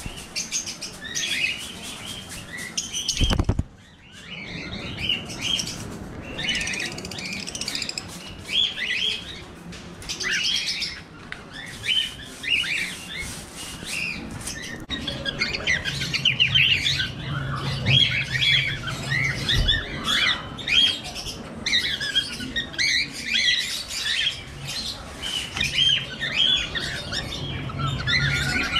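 A flock of cockatiels chirping and calling in an aviary, short calls overlapping, busier in the second half. A dull knock about three seconds in.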